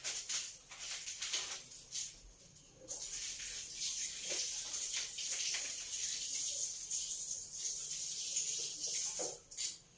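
Kitchen handling: a few clinks and knocks of utensils, then a steady hiss from about three seconds in that stops shortly before the end.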